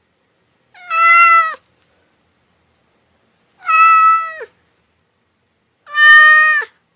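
A cat meowing three times, evenly spaced, each meow about a second long, holding a steady pitch and dropping at the end.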